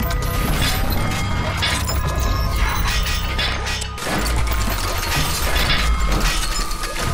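Background music with mechanical clicking, ratcheting and crashing sound effects laid over it, as for a robot transforming; the music's bass changes about four seconds in.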